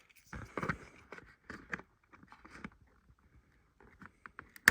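Rubber packaging ties being cut to free a plastic action figure: scattered small clicks and rustles of handling, with one sharp snap near the end.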